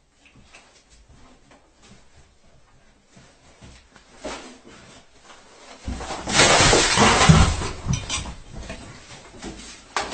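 A bucketful of household rubbish dumped onto a person lying on a bed: quiet shuffling and rustling first, then about six seconds in a sudden loud crash of plastic packaging, cans and bottles spilling and thudding down for about two seconds, with scattered clatter after.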